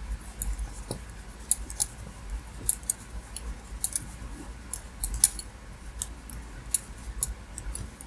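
Wooden double-pointed knitting needles clicking and tapping against each other in quick, irregular ticks as stitches are slipped from one needle onto two, over a faint low hum.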